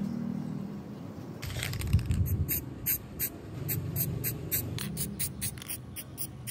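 Spray paint hissing from an aerosol can in short, rapid bursts, about three a second, starting about a second and a half in, as it coats a stencilled steel plate.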